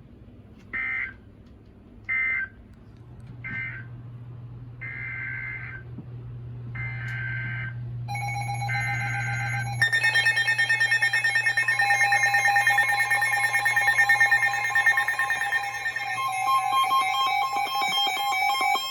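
Emergency Alert System data tones: three short screechy end-of-message bursts, then three longer header bursts announcing the next warning. About ten seconds in, a loud, steady multi-tone alert signal begins and holds, over a low hum.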